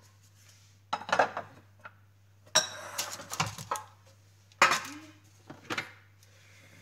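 Kitchenware being handled in four short bursts of knocks and clinks: the Thermomix lid set down on the bench, a baking tin put down, and the stainless-steel mixing bowl lifted off its base.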